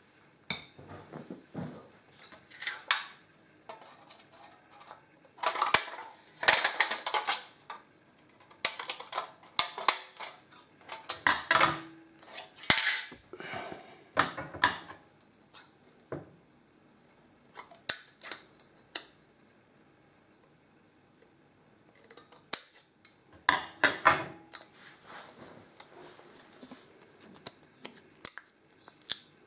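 Scissors cutting a piece of thin can sheet metal: irregular runs of sharp snips and metallic crackling, broken by short pauses.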